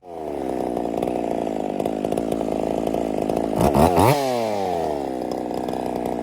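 Ported Husqvarna 50 two-stroke chainsaw running hard in a cut, its engine pitch sinking slowly under load. About three and a half seconds in it revs up sharply and drops back again.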